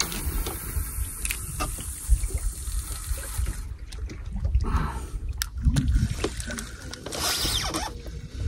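Wind buffeting the microphone with an uneven low rumble, over a hiss of trickling water that fades out about three and a half seconds in and comes back briefly near the end.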